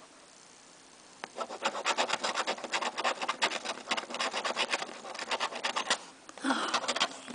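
Scratch-off lottery ticket being scratched, rapid back-and-forth rasping strokes across the card's coating that start about a second in and stop near the end.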